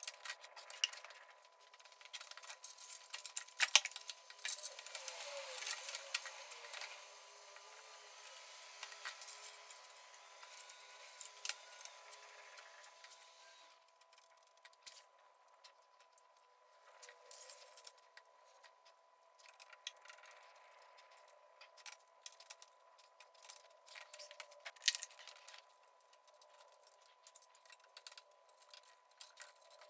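Irregular light metallic clicks and clinks, busiest in the first half.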